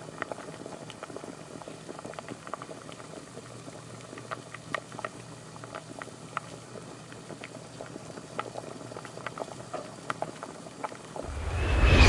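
Faint, irregular little clicks and pops scattered over a low hiss; in the last second a loud noise swells up sharply.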